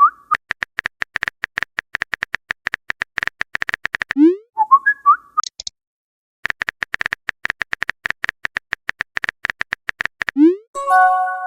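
Phone keyboard tapping sound effects, a run of quick even clicks. The clicks are broken by message send and receive alerts: a short rising swoop with chirps about four seconds in, and a swoop followed by a brief chime chord near the end.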